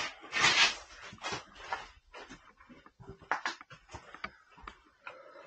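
A person clambering down over rock, breathing hard, with clothing and boots scraping and knocking on the stone in short irregular bursts; the loudest burst comes about half a second in.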